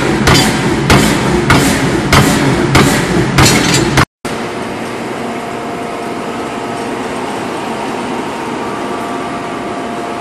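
Forging hammer striking a red-hot titanium ring on a mandrel, about two blows a second, until the sound cuts off abruptly about four seconds in. Then a steady workshop machinery hum with a few faint tones.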